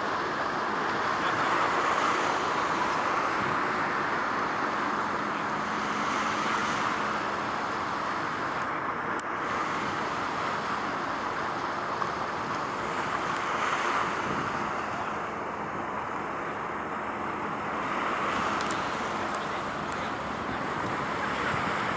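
Steady rushing noise of road traffic, with vehicles swelling past every few seconds.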